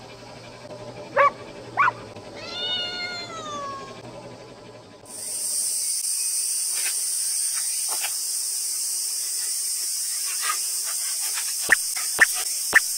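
Two short dog barks and a drawn-out cat meow that falls in pitch. Then a steady high-pitched hiss, with a few sharp clicks near the end.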